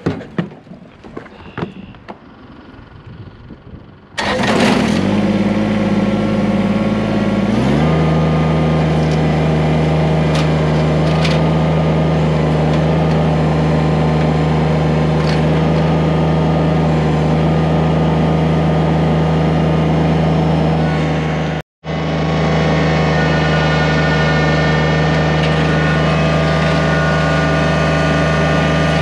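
A few light clicks and knocks, then a tractor engine starts up about four seconds in and runs loud and steady. A few seconds later it settles to a lower, even note.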